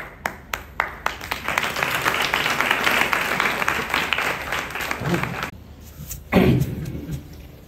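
A small audience clapping: a few separate claps, then about four seconds of dense applause that stops abruptly, followed by a brief voice.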